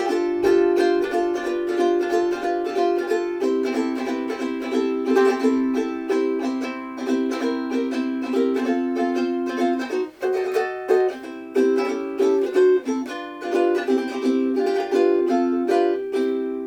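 Seilen SLMT-1380 mini tenor ukulele, all Madagascar rosewood, being played: a quick run of plucked notes and chords. There is a short break about ten seconds in, and a last chord is left ringing out near the end.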